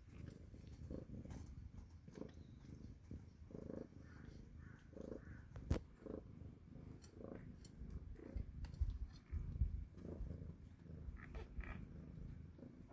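Cat purring, a low pulsing rumble, with a few sharp clicks over it, the clearest about six seconds in.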